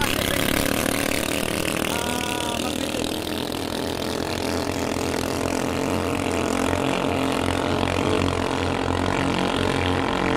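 Engines of racing motorized outrigger boats running at full throttle, a steady engine note throughout.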